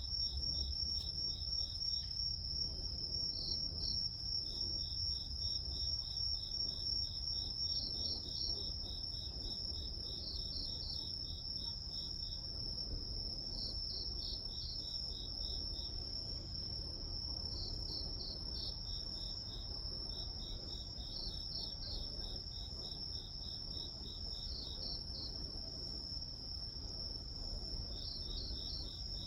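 Grass insects singing: one steady high-pitched trill with trains of rapid pulsed chirps from other insects just below it, starting and stopping every few seconds, over a low rumble.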